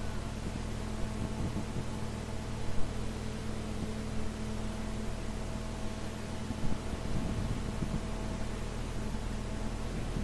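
Steady hiss and low hum of an old recording with no voice. There is a faint knock a little under a third of the way in and another past halfway.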